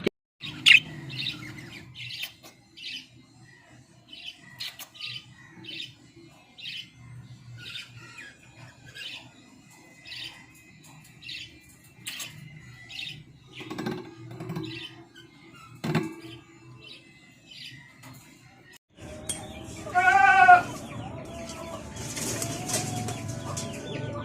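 Caged birds chirping: short high chirps about once a second, with a couple of knocks midway. After a break, a louder rapid run of harsh calls comes about two thirds of the way through, over a noisier background.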